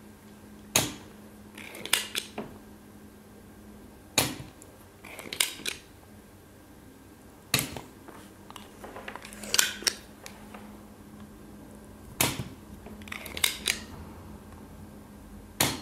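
Spring-loaded desoldering pump (ZEL OD-25 solder sucker) firing five times, a sharp snap every three to four seconds as the plunger is released to suck molten solder. Between shots come clusters of smaller clicks as the plunger is pushed back down to cock the spring again.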